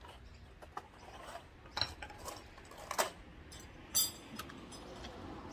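Several sharp metallic clinks from tie-down strap hardware and tools being handled while strapping a load down. The loudest comes about three seconds in, and one about a second later rings briefly.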